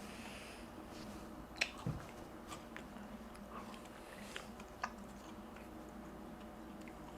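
A few faint, sharp clicks and taps over a low steady hum, the loudest pair about a second and a half to two seconds in and two more a little before five seconds.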